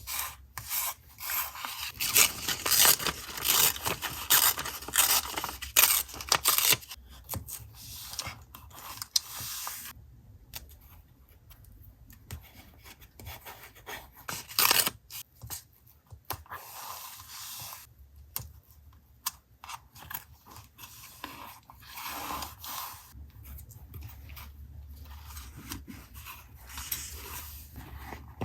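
Paper being handled for collage journaling: a run of quick rubbing and scraping strokes about two seconds in, then quieter scattered rustles and scrapes.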